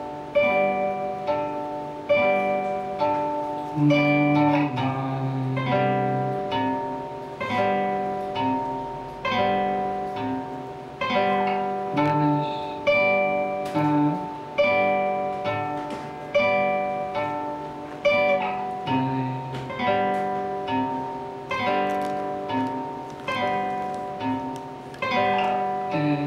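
Solo guitar played live: a repeating pattern of single plucked notes, each ringing and fading, over a moving bass line, with no singing.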